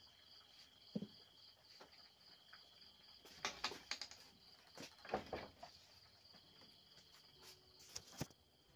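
Crickets trilling, a steady high chirring that pulses about four times a second, with several knocks and clatters as someone handles a door panel and moves about, the loudest about three and a half and five seconds in.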